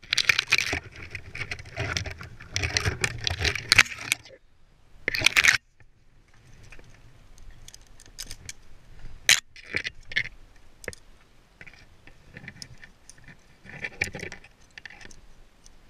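An arborist's metal climbing and rigging hardware clinking and rattling, with some scraping. It is busy and dense for the first few seconds, with a short burst about five seconds in, then thins to scattered sharp clicks.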